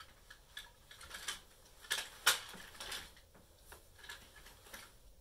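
Plastic and metal frame of a Graco Pack 'n Play playard being folded: a run of irregular clicks and clatters as the side-rail locks are released and the frame collapses, loudest about two seconds in.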